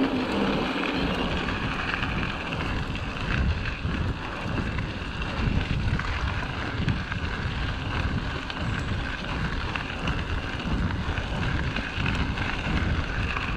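Wind buffeting the action camera's microphone over the rumble of an Orbea Rallon mountain bike's tyres rolling along a dirt and gravel path.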